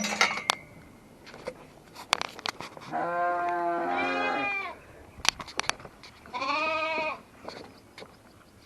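Farm livestock bleating: two long, wavering bleats, the first about three seconds in and lasting well over a second, the second shorter, a few seconds later. A few faint short clicks are scattered between them.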